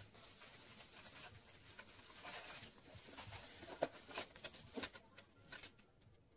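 Paper and plastic packing wrap rustling and crinkling as small exercise-machine parts are unwrapped by hand, with a few sharp clicks and taps about four seconds in.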